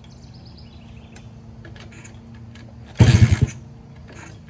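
Pit bike's small single-cylinder engine being started: about three seconds in it catches for roughly half a second with a short burst of firing, then dies away. A start attempt on an engine that won't keep running after rusty fuel was cleared from its line.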